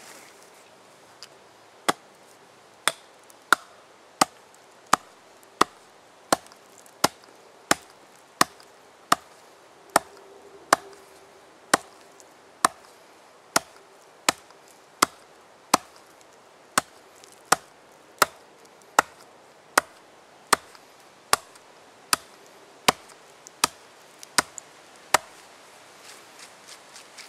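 Hatchet chopping into the end grain of a log round in a steady series of sharp chops, about three every two seconds, to chip out a hollow for burning out a bowl. The chopping stops near the end.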